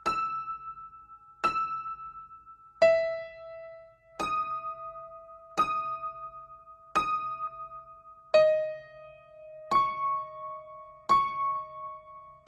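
Slow background music: single keyboard notes struck about once every second and a half, each ringing out and fading before the next.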